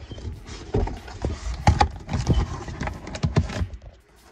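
Cardboard box and its packaging being handled and opened by hand close to the microphone: irregular knocks, taps and rustling.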